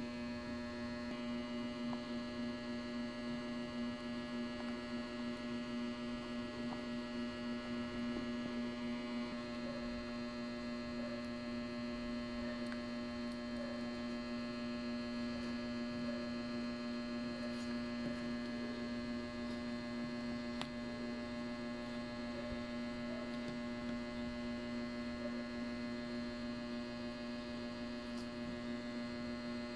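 A steady electrical hum at one unchanging pitch, with a few faint clicks.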